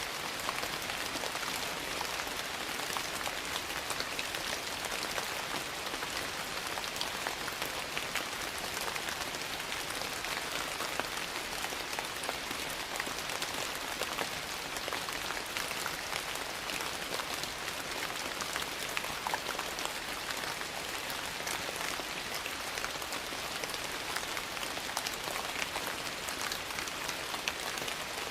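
Steady rain falling on a surface, an even dense hiss dotted with many small sharp drop ticks.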